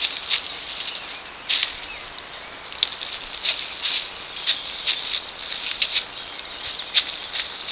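Irregular dry crackling rustles in leaf litter, a short sharp one every half second or so, like steps through dead leaves.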